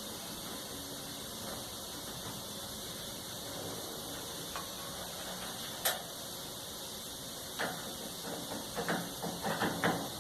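Light handling noises of an 8 mm wrench on a clothes dryer's door screws and metal panel: one sharp click about six seconds in, then a quick run of small knocks and clicks near the end, over a quiet steady room background.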